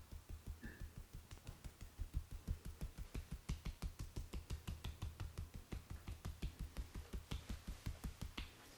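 Hands tapping rhythmically during a head massage: a fast, even patter of soft thumps, about six a second, each with a sharp slap on top. It stops just before the end.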